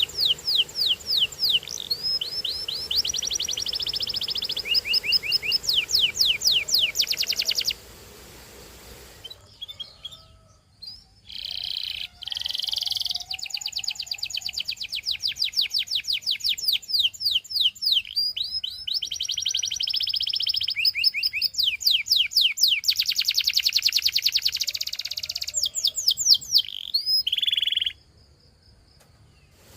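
Domestic canary singing: long trills of rapidly repeated high notes, one phrase running into the next, with a short break about eight seconds in and the song stopping near the end.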